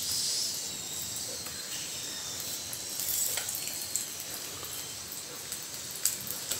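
Hot oil with chilli powder sizzling in a steel kadai as whole boiled eggs are added one at a time, with a few sharp pops or clicks, about three seconds in and again near the end.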